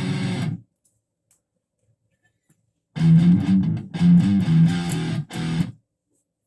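First Act ME 506 electric guitar played through a distorted tone. A power chord rings and is muted about half a second in. About three seconds in comes a short riff of several power chords, stopped sharply near the end.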